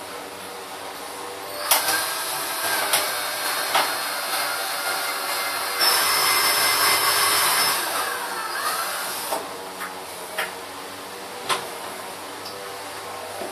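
Cordless drill running as it bores into a car headlamp's plastic housing. It runs louder for about two seconds around the middle, with a few sharp clicks and knocks in between.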